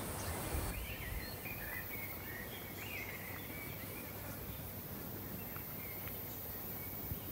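Faint outdoor ambience: a steady low hiss with scattered small bird chirps, mostly in the first half.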